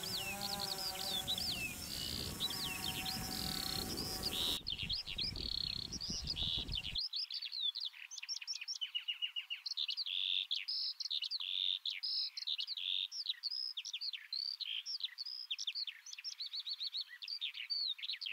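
Songbirds singing, a dense run of high chirps and sweeping whistles. For the first few seconds a camera drone's hovering propeller hum, wavering in pitch, and wind noise lie beneath the song. The hum stops about four and a half seconds in and the noise about seven seconds in.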